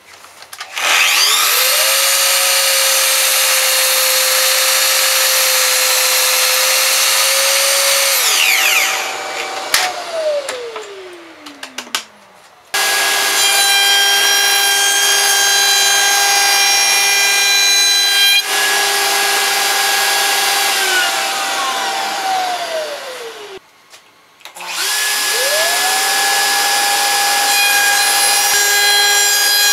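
Woodshop power tools running in turn: a sliding miter saw, a table-mounted router and a Festool dust extractor. An electric motor whine spins up with a rising pitch, holds steady for several seconds, then winds down with a falling pitch. It happens in three runs, the second starting abruptly and the third spinning up near the end.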